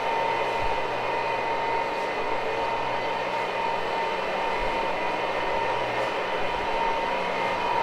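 Carpet-cleaning equipment running steadily: an electric motor's even noise with a constant high whine over a low hum.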